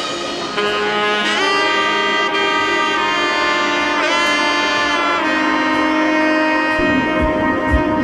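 Background music: a sustained brass or saxophone line with pitch slides, and a drum beat coming in near the end.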